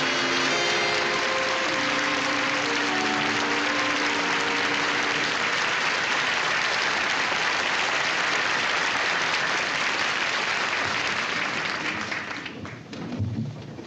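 Standing ovation from a large banquet crowd: loud, sustained clapping. Music plays under it for the first few seconds, and the applause dies away near the end.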